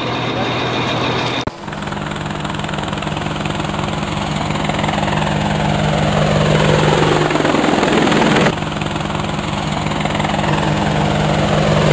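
Quadcopter drone's propellers buzzing in a steady hum, with a falling sweep that cuts off suddenly about 8.5 seconds in. For the first second and a half, a fishing boat's engine is running, then it cuts away.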